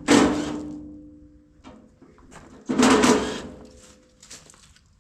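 Two loud metal clangs on the steel of a combine corn head, about two and a half seconds apart, each ringing on for a second or more as it dies away.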